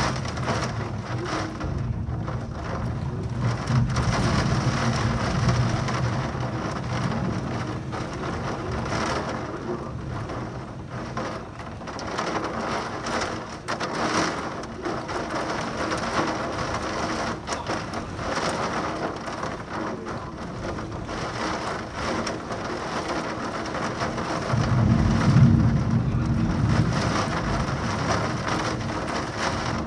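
Heavy thunderstorm rain pouring steadily, with thunder rumbling over the first few seconds and again, louder, near the end.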